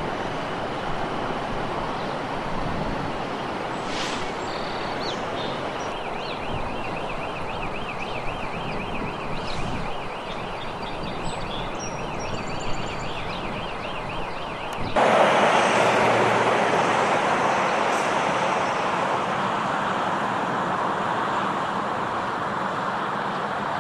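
Steady outdoor vehicle and traffic noise, with a fast warbling tone laid over it from about six seconds in. About fifteen seconds in the tone stops and the noise turns abruptly louder.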